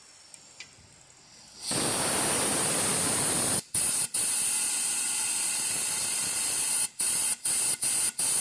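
Compressed-air blow gun blasting air into the pipe port of a car air-conditioning condenser coil to flush it out: a loud steady hiss that starts about two seconds in and is broken by several short gaps.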